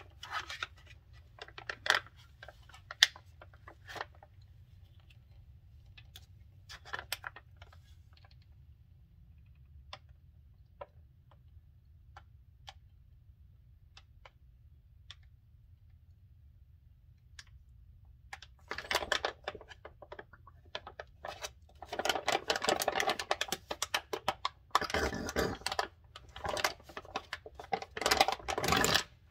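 Crinkling and crackling of a plastic gear-oil pouch squeezed and rolled up by gloved hands to push gear oil into a truck's rear differential fill hole. Scattered crackles at first, then longer stretches of dense crinkling over the last ten seconds.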